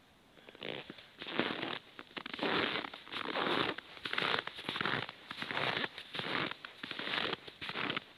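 Footsteps crunching in snow at a steady walking pace, a crunch about every three quarters of a second, starting about half a second in.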